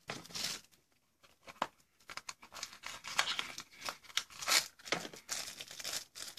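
Paper and plastic crinkling and tearing as a small cardboard box of bang snaps is torn open and handled over a black plastic bag, in short scratchy bursts with a brief quiet pause about a second in.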